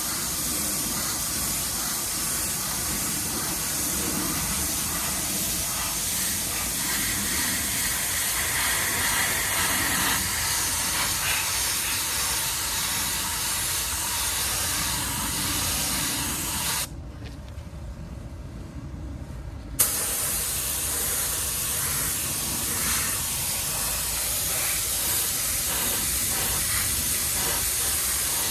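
Spray gun hissing steadily as paint is sprayed onto an alloy wheel. It stops for about three seconds past the middle, then starts again with a click.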